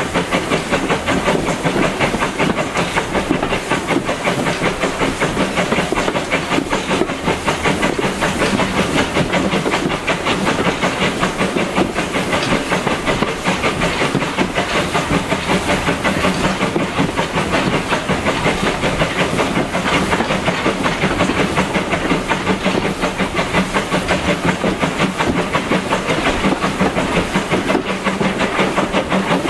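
LB&SCR A1 Class 'Terrier' 0-6-0 tank engine hauling a train, its steam exhaust beating evenly with hiss, over the clatter of the carriage wheels on the rails.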